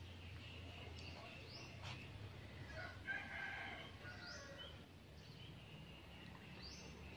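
Faint birds calling: short rising calls repeat every two to three seconds, with a louder, longer call about three seconds in.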